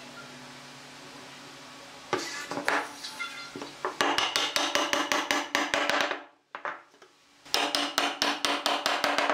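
Rapid runs of sharp knocks, as of the glued tenon of a pine table-leg post being tapped home into its slot in the base. The runs are separated by short pauses and come after a couple of seconds of steady low hiss.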